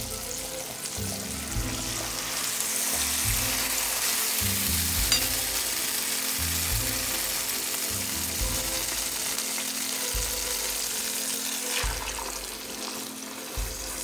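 Seasoned chicken breasts sizzling in hot olive oil in an enamelled pan as they brown, the sizzle growing louder about two seconds in. Background music with repeating low notes plays underneath.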